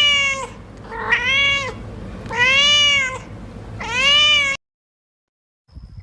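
Domestic cat meowing about four times, each meow a drawn-out call that rises and then falls in pitch; the sound cuts off abruptly about two-thirds of the way through.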